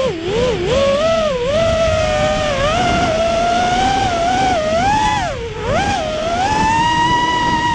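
Racing quadcopter's four Emax 2205 2600kv brushless motors spinning DAL 5045 three-blade props, whining as heard from a camera mounted on the quad. The pitch swoops up and down with the throttle, then climbs and holds high and steady over the last couple of seconds.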